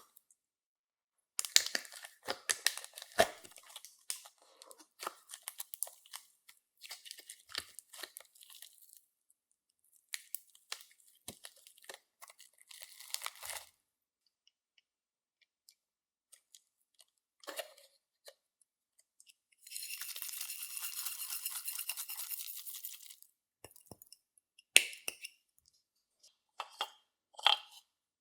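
Clear slime being worked by hand: runs of sticky crackling clicks and pops, with a few seconds of steady rustling hiss about two-thirds of the way through and short pauses between handlings.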